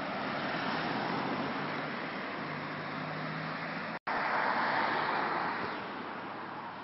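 Road traffic on a street: a steady rush of passing cars' tyres and engines. The sound breaks off for an instant about four seconds in, then a louder pass swells and fades away.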